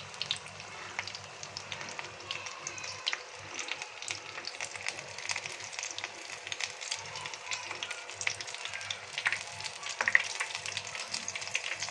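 Chicken samosas and spring rolls deep-frying in hot oil: a steady sizzle with many fine crackling pops, the pieces nearly done and turning brown.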